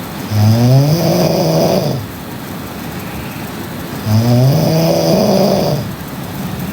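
A woman snoring loudly in her sleep. There are two long snores about four seconds apart, each rising in pitch as it begins.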